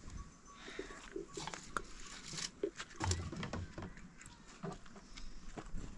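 Faint scattered sounds: light clicks and knocks, a low thud about three seconds in, and a few short animal calls.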